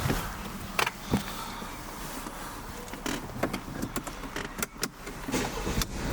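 Sharp clicks and knocks, about a dozen at uneven intervals, from a Mercedes-Benz E-Class being handled.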